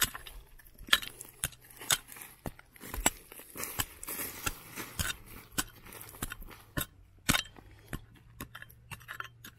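Hard clinks and knocks of a digging tool striking stone and quartz crystals, irregular, about one to two a second, with one louder strike near the end.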